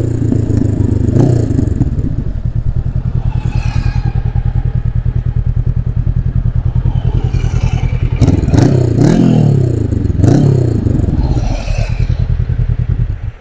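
Honda CB500X parallel-twin engine idling with a steady pulse. About eight seconds in it gives several quick throttle blips that rise and fall back to idle, and the sound then cuts off suddenly at the very end.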